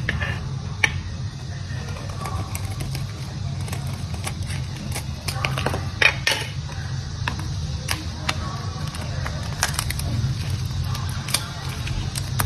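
Dry yellow bar soap broken and crumbled by hand: irregular crisp crackles and clicks, with a few sharper snaps, about a second in and about six seconds in. A steady low hum runs underneath.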